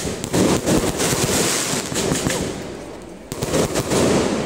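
Aerial fireworks bursting overhead: a dense run of bangs and crackling. The bursts ease off briefly a little before three seconds in, then a fresh salvo goes off.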